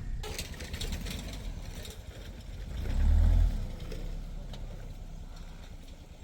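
Suzuki Jimny's engine running as it drives slowly over rough track, a steady low rumble with a brief louder low swell about three seconds in.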